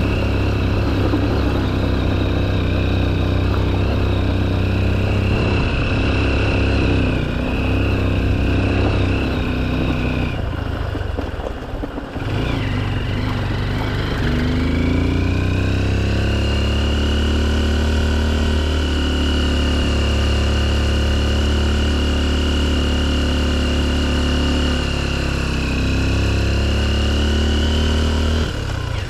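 Honda XR150L's single-cylinder four-stroke engine running while riding. The engine note drops as it eases off about ten seconds in, rises again a few seconds later, then holds a steady pitch.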